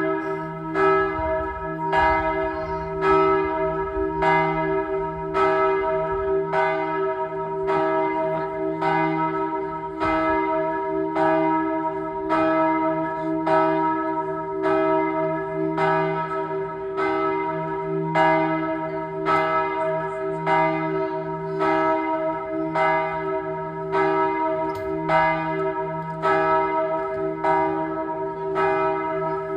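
Church bells ringing, striking about once a second, with each strike's tone hanging on so that the peals blend into a steady, humming chord.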